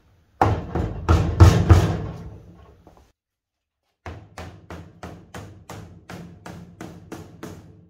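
Rubber mallet knocking a plywood board down into the top of a thin sheet-steel tool chest, the hollow chest booming like a drum. A few hard blows come first, the loudest about a second and a half in, then after a short break a run of lighter, even taps about three or four a second.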